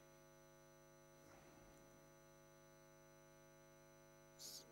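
Near silence with a steady, low electrical mains hum; a brief faint hiss near the end.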